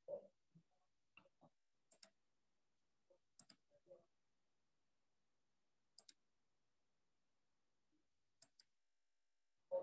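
Near silence broken by a few faint, irregular clicks and taps, two of them quick double clicks.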